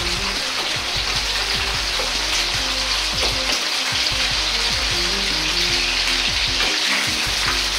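Potato-starch-coated chicken breast pieces deep-frying in oil in a wok: a steady, dense sizzle, with a ladle lightly stirring the pieces so they don't stick as their surfaces set.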